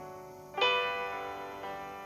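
Slow piano music: sustained chords struck and left to ring and fade, a new chord about half a second in and a softer note near the end.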